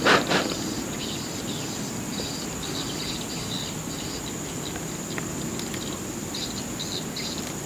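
Insects chirping in the riverside vegetation: a steady high-pitched drone with short, irregular bursts of chirps over a constant background hiss. A brief louder sound comes right at the start.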